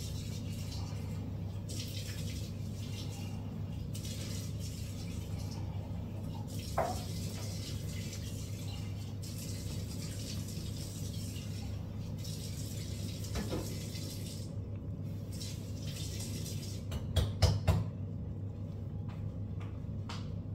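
Washing up at a kitchen sink: tap water running on and off and a sponge wiping the counter, over a steady low hum. A quick clatter of four or five knocks a little before the end.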